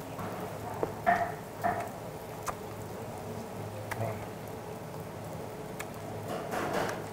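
Pork sizzling on a tabletop barbecue grill, with a few sharp clicks of metal tongs turning the meat. Short breathy puffs come about a second in, again shortly after, and near the end, from someone blowing out around hot meat in the mouth.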